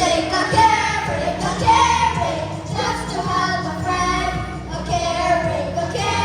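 Children singing together over music.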